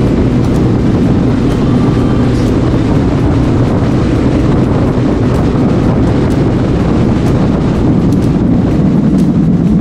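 Motorcycle engine running steadily at highway cruising speed, with wind rushing over the microphone.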